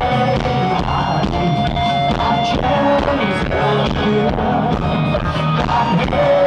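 Live rock band playing at loud volume: electric guitar and drums, with a sustained melody line held over a steady bass and drum groove.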